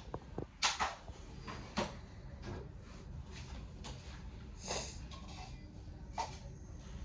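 A handful of sharp knocks and clatters, about five spread over several seconds, as things are handled and set down, over a steady low room hum.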